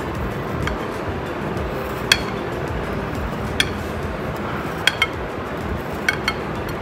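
Kitchen knife blade clinking against the bottom of a glass dish while slicing set jelly: about seven short, sharp clicks at irregular intervals, two of them in quick pairs near the end, over background music.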